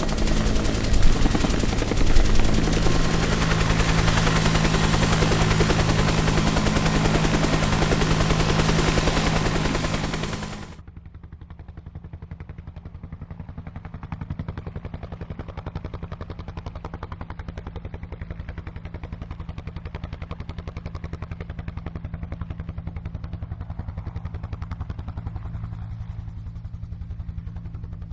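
Bell UH-1 Huey helicopter running, its rotor beating in a fast, even chop over the turbine. The first ten seconds are loud and dense. Then the sound cuts off abruptly to a quieter recording of the rotor chopping steadily.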